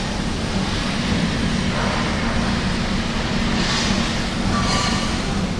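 Steady construction-site din: a constant low machine hum under a wash of wind-like noise, with a brief high squeal or clatter about four and a half seconds in.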